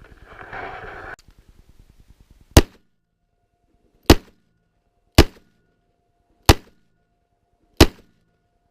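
Ruger Super Redhawk .44 Magnum revolver fired five times in steady succession, a shot about every second and a half, each a sharp crack with a short low boom after it. A brief rustle comes before the first shot.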